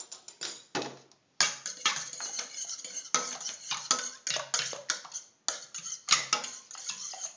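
A utensil beating egg and milk in a small stainless-steel pan: quick, uneven clinking and scraping against the metal, sparse for the first second and then near continuous.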